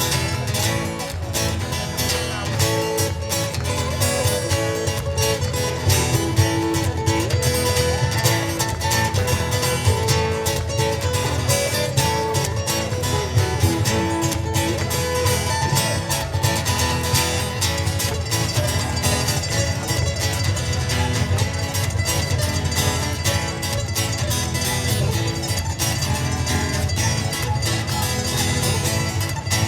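Instrumental ukulele music played live: fast, busy strumming with a picked melody line on top and a steady low bass part underneath.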